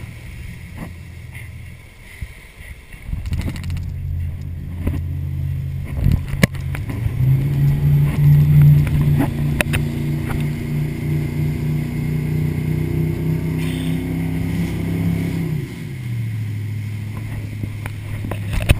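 Motorboat engine running under load while towing on a taut rope, revving up a few seconds in, holding a steady pitch, then easing back to a lower pitch near the end. Scattered short knocks and clicks sound over it.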